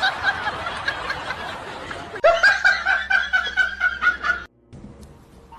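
A person laughing, with a rapid string of short laughs a couple of seconds in that cuts off abruptly.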